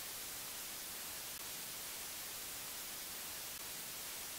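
Steady hiss of analogue TV static, an even white-noise sound effect.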